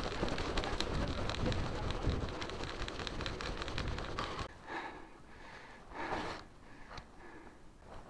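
Riding noise from a mountain bike, picked up by a clip-on mic under a jacket: a rumbling rush with a run of sharp clicks, which the rider thinks come from the mic cable rattling or rubbing against the mic as he pedals hard. About halfway through the rumble drops away, leaving a few short puffs.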